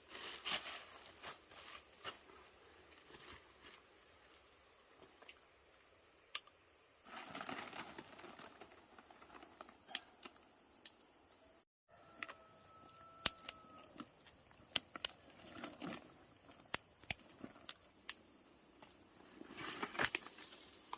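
Quiet outdoor ambience: a steady high-pitched insect drone with scattered light taps and clicks.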